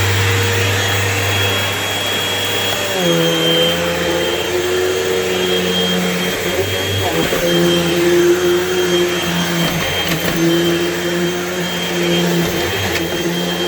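Hoover Elite Rewind upright vacuum cleaner running with a steady high whine over a lower motor hum. About three seconds in, its pitch dips slightly and a deeper hum joins in.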